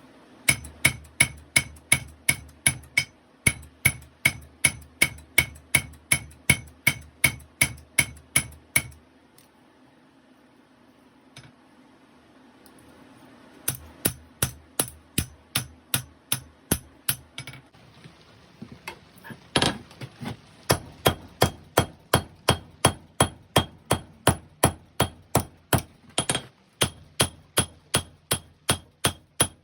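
Hammer blows on 5160 steel over an anvil while forging a knife blade, each strike ringing, about two to three a second. The hammering stops for a few seconds partway through, then resumes, with one especially loud blow.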